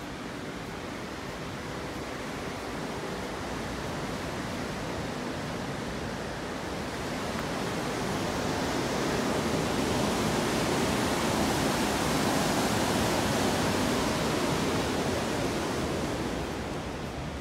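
Steady rushing of water at a dam, swelling to its loudest through the middle and easing off near the end.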